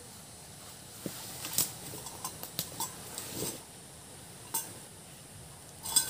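Scattered clinks and knocks of camping gear and cookware being set down and handled on the ground, the sharpest knock near the end, over a faint steady hiss.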